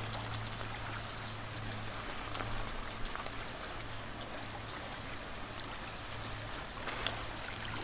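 Water running over the side of a limestone canyon wall and spilling down: a steady, even splashing.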